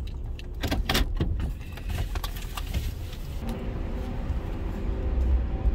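Car engine running at low speed with a few sharp clicks and rattles in the first second or so. From about three and a half seconds in, the engine note steadies and grows louder as the car pulls away.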